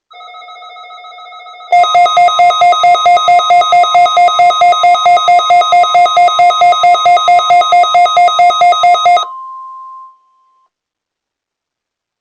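Weather alert radio receivers sounding their electronic alert alarm for the weekly test. A quieter steady two-tone sound is joined, under two seconds in, by a loud, fast pulsing beeping at about four beeps a second, which stops about nine seconds in. It gives way to a brief single steady tone that fades out.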